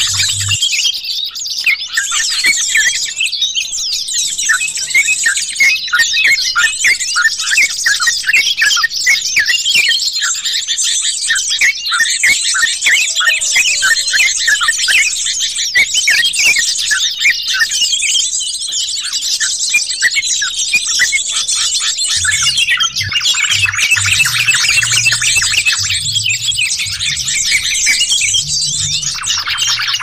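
Bird-lure (pikat) recording of yellow-vented bulbuls (trucukan) and other bulbuls calling all at once. It is a dense, busy chatter of rapid high chirps and bubbling trills with no break.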